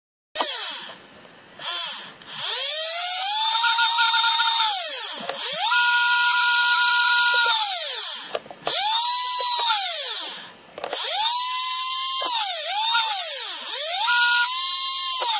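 Tamiya Super Stock RZ brushed electric motor in a Drift Package RC car, revved in about six bursts. Each time a whine rises to a steady high pitch, holds, and winds down. A high squealing hiss rides over it, the キュルキュル bearing noise that the owner treated with metal oil.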